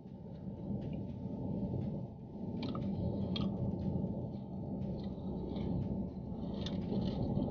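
A man chewing a mouthful of burger, with a few soft crinkles of its paper wrapper, over a steady low rumble in the car cabin.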